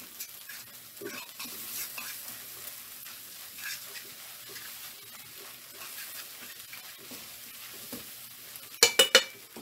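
Scrambled eggs being stirred and scraped around a nonstick frying pan, with a faint sizzle under small scraping sounds. Near the end, a quick run of loud sharp knocks against the pan.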